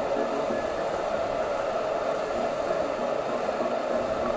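Steady roar of large whitewater rapids, a continuous rushing hiss without breaks.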